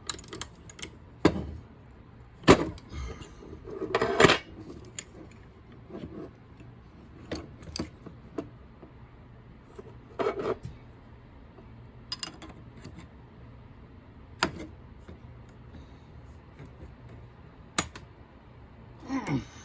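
Scattered metal clinks, clicks and knocks of a tool and spray gun parts being handled while a misaligned fitting on the gun is loosened and adjusted, with a few louder clanks among them.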